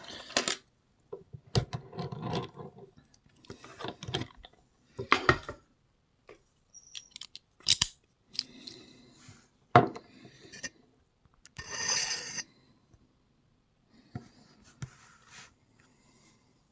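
Scattered metallic clicks and clinks from an old Sears pin tumbler lock and its key being handled and turned to lock it, with a longer rattle about twelve seconds in.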